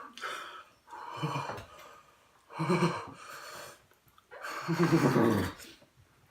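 A person gasping and breathing hard in about four short bursts, some with a voiced groan, while struggling to get down food that disgusts him.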